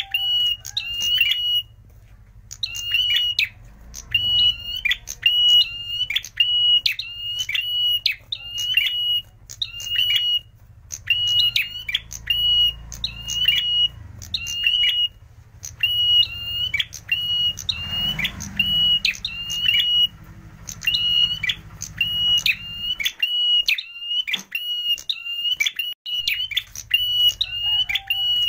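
Male ashy tailorbird (prenjak merah) singing: loud, sharp, high chip notes on one repeated pitch, given in quick runs of two or three with short pauses between. A low hum runs beneath and drops out for a few seconds near the end.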